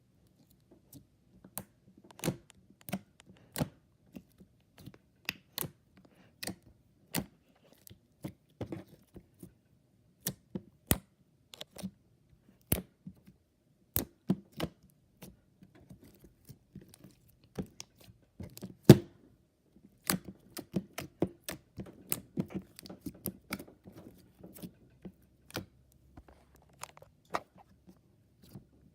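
Freshly made slime being squeezed and poked by hand, giving irregular sharp pops and clicks over a soft squish. The pops come faster and closer together for the last third.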